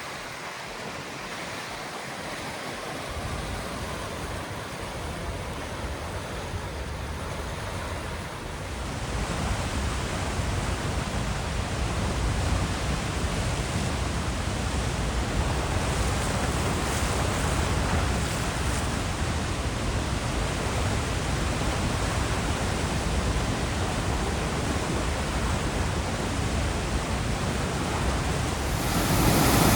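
Water rushing steadily over a dam spillway, a constant roar of falling water that grows louder about nine seconds in and again near the end.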